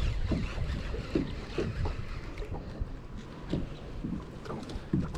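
Wind buffeting the microphone, with a steady low rumble and choppy water lapping against the side of a small boat in scattered soft slaps.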